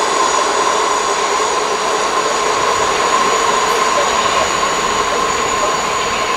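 Locomotive-hauled passenger train running along the station tracks: a steady rolling noise of wheels on rails with a constant whine.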